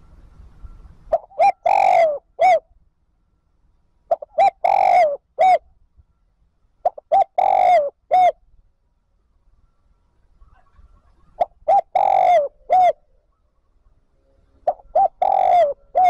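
Spotted dove singing its cooing song: five phrases about three seconds apart, each two short coos, a longer drawn coo and a final short coo. It is the call used as a decoy to draw wild doves in.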